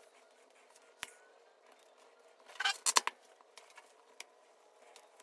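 Small rubber toy tires being worked onto plastic wheel hubs by hand. There is a click about a second in, then a short, loud burst of scraping and clicking rubber-on-plastic noise near the middle, followed by a few light ticks.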